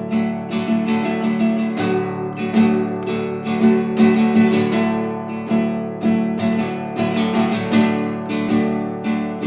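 Classical guitar played solo: a steady stream of fingerpicked notes, each ringing on under the next. Heard through a pair of small condenser microphones in XY stereo about 2.5 m away in a living room.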